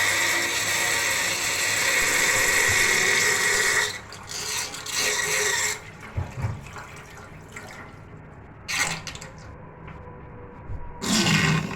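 Whirlpool of water draining down a plughole, sucking air with a loud rushing hiss for about four seconds and again briefly after, then quieter with short gurgling slurps, the loudest near the end.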